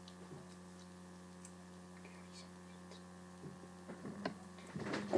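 Steady low electrical hum, like mains hum, with a few faint clicks scattered through it and louder handling noise or voice sounds starting near the end.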